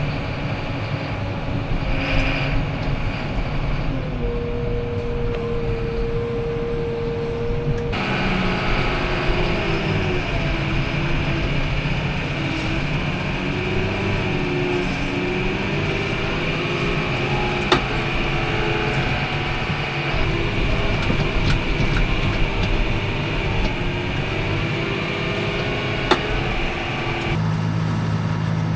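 Engine of a heavy farm vehicle running, its revs wandering up and down. About eight seconds in the sound changes abruptly and a steady high whine joins it. The whine drops out near the end, leaving a deeper, steadier engine note.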